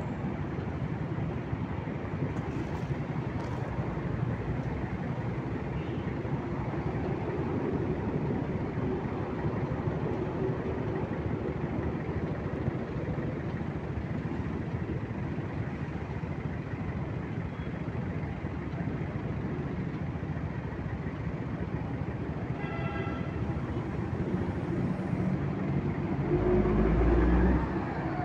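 Steady drone of street traffic around a stationary rider. About 23 s in a short pitched tone sounds, and near the end a louder low rumble comes from a nearby vehicle.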